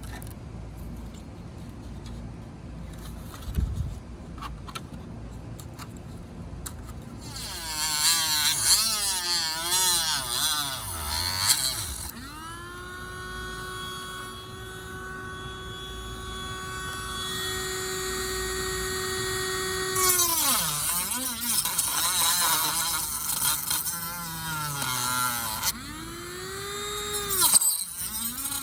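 High-speed rotary tool with a cutting disc, quiet at first with a few clicks. About seven seconds in it starts to whine with a wavering pitch, as when cutting under load. It then spins up to a steady high whine for about eight seconds, winds down, and gives another short rise and fall near the end.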